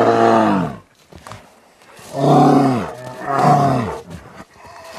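Brown bears growling: deep, drawn-out growls that drop in pitch as each one ends. The first fades out about a second in, and two more follow about two and three seconds in.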